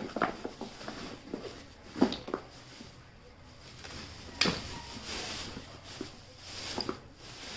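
Thin polythene bags rustling and crinkling as they are handled and pulled apart, with a few sharp clicks and taps, the loudest about four and a half seconds in.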